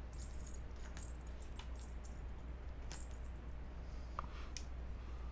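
Faint, scattered clinks and light rattling of metal collar hardware as an e-collar receiver on its strap is picked up and handled, over a low steady hum.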